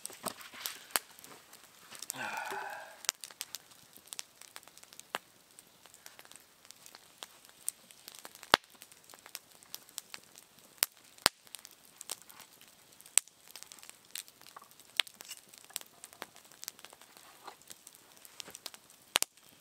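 Wood campfire crackling, with irregular sharp pops and snaps from the burning wood. A short voice-like sound comes about two seconds in.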